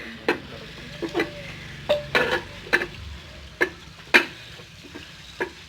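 Irregular knocks and clinks of metal vessels being handled and set down, about eight sharp strikes spread over a few seconds.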